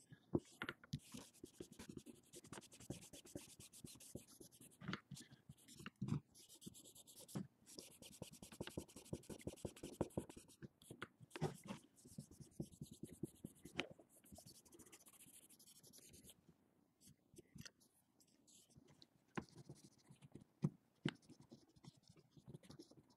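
Alcohol-moistened cotton swab scrubbing over a phone's plastic back frame, an irregular soft scratching and rubbing with small clicks, easing off for a few seconds past the middle. It is cleaning the frame before new adhesive tape goes on.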